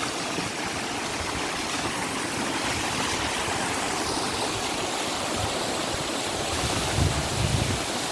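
A mountain river rushing through the rocky gorge below, a steady rush of water, with a few low bumps about seven seconds in.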